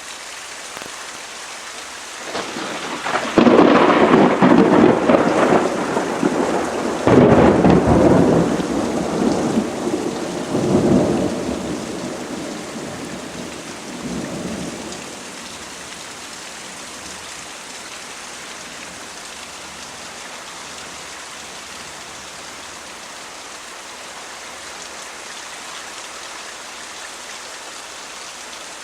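Steady rain with a peal of thunder: a sudden crack a few seconds in, a second crash a few seconds later, then rumbling that dies away about halfway through, leaving the rain alone.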